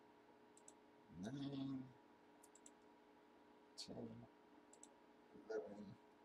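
Faint computer mouse clicks, a quick pair or triple of clicks about every two seconds, as a web page's button is clicked over and over.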